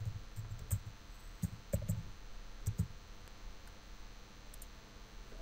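Scattered light clicks of computer keyboard keys and a mouse button, a few at a time and irregularly spaced, mostly in the first three seconds.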